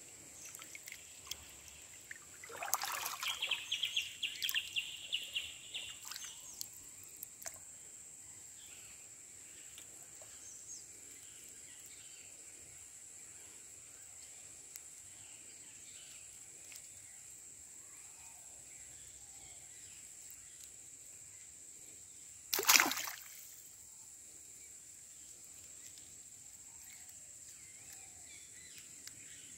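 Shallow river water sloshing and splashing as hands work in it, with a spell of busy splashing a few seconds in and one sharp, louder splash about two-thirds of the way through. A steady high-pitched whine runs underneath.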